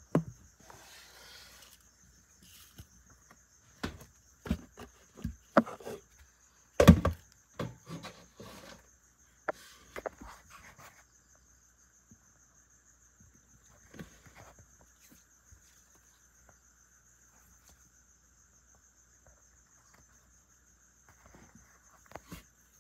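A steady high trill of crickets, with a run of sharp knocks and taps through the first half, the loudest about seven seconds in, and a few fainter ones later.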